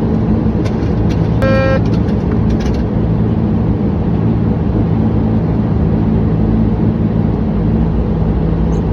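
Steady flight-deck noise of a Boeing 737 on approach: airflow and engine noise with a low, even hum. A short electronic beep sounds once, about one and a half seconds in.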